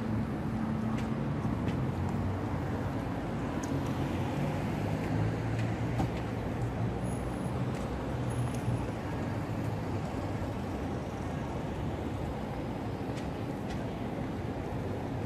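Road traffic: a steady wash of vehicle noise with a low engine hum that fades after about nine seconds.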